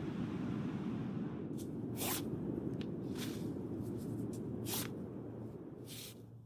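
Rain and crackling fireplace ambience: a steady low rushing noise with scattered crackles and pops, fading down near the end.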